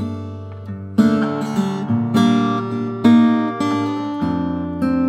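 Solo acoustic guitar playing a song's introduction: slow chords struck every second or two and left to ring over a low bass note.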